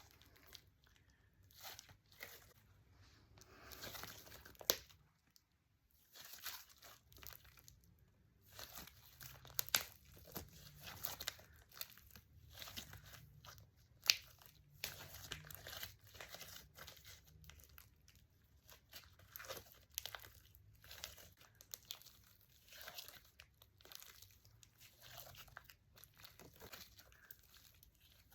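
Hand-played milk tea slime being stretched, folded and squished, making quiet, irregular sticky crackling with a few sharp pops.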